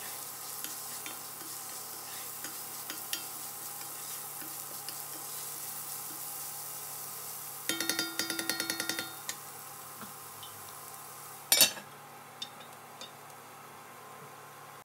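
Chopped celery and onion sizzling in an enameled cast-iron Dutch oven as a wooden spoon stirs and scrapes them. About eight seconds in comes a rapid run of taps with a ringing tone, and a few seconds later one loud clank as the lid goes on, after which the sizzle is quieter.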